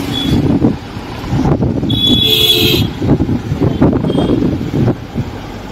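Road and engine rumble heard from inside a moving car, with a vehicle horn sounding for about a second near the middle and two short, fainter toots, one near the start and one about four seconds in.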